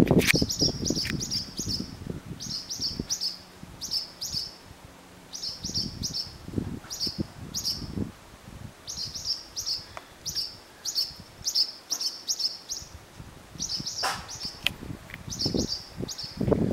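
Barn swallow alarm calls: quick, high chirps in clusters of three to five, repeating every second or two with short gaps. This is the warning the birds give as they dive at a cat near their nest. Low rumbles come in at the start and again near the end.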